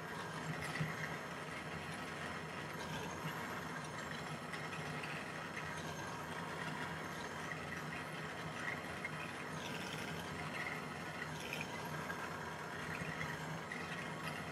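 Jeweller's gas soldering torch burning steadily, an even hiss with a low rumble, as its flame heats a silver piece for pick soldering.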